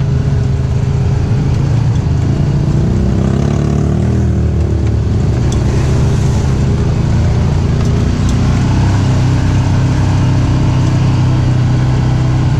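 ATV engine running steadily while riding, its pitch dipping and rising briefly a few seconds in.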